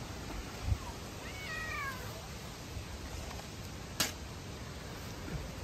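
A cat meowing once, a single falling call about a second and a half in. A sharp click follows about four seconds in.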